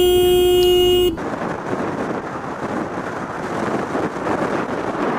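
A single-note vehicle horn held steadily for about a second, then cut off abruptly. It is followed by steady wind and road noise from a motorcycle riding at highway speed.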